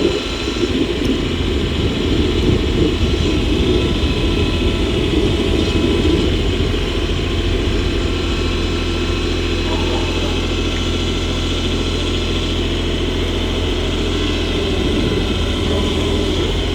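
Kioti tractor's diesel engine running steadily, holding an even level throughout.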